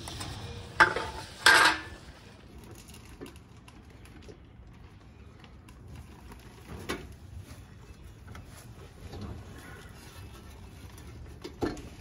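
Metal clanking as a sheet-metal brake dust shield and a new wheel hub are fitted against the steering knuckle: two loud, sharp clanks about a second in, then quieter handling with a few light metallic clicks.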